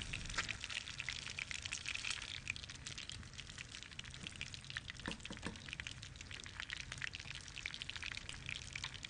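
Steady crackling sizzle of food frying in a pan, with a couple of light clicks about five seconds in.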